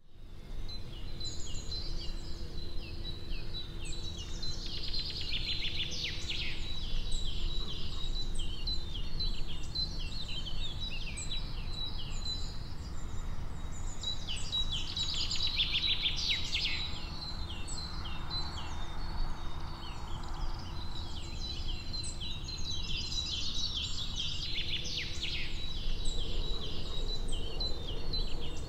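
Woodland birdsong: many small birds chirping and twittering, with thick bursts of chirping about every ten seconds, over a thin steady high tone and a low rumble.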